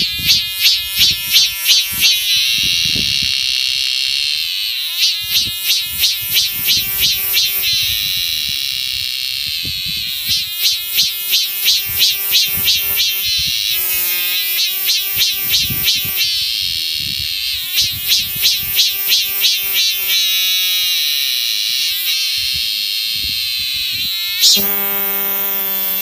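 Cicada calling: repeated phrases of rapid pulses, about four a second, each phrase two to three seconds long, coming back every few seconds over a steady high buzz.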